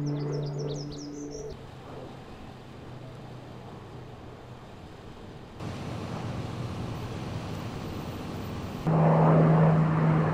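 Birds chirping briefly in short repeated falling calls over a low hum. Then a pickup truck drives by, and about nine seconds in comes the loudest part: the steady drone of a firefighting air tanker's engines as it flies over dropping retardant.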